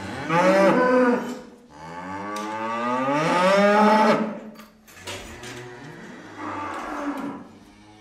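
Cow mooing: three low moos, the second the longest at about three seconds, rising and then falling in pitch, and the last one fainter.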